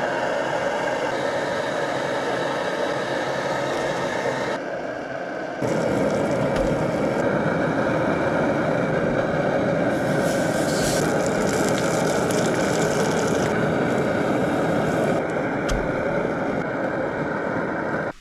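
Gas camp stove burner running steadily under a cast-iron pan of frying pancakes. A brighter hiss comes from about ten to thirteen seconds in.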